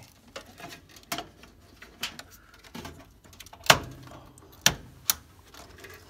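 Hands pressing a DDR4 memory module into a motherboard DIMM slot, making a run of about six sharp clicks and knocks, the loudest a little past halfway, as the module seats and the slot's clip snaps shut.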